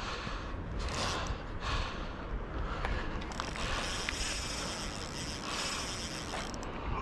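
Fishing reel clicking and whirring while a hooked striped bass is fought, with a steadier high whirr from about three seconds in until shortly before the end.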